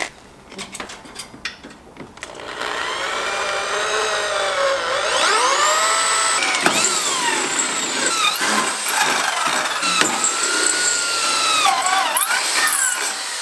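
Power drill boring mounting holes through a go-kart's front grill. It starts about two and a half seconds in after a few light clicks, then runs with its pitch sliding up and down as the bit bites and the trigger is eased.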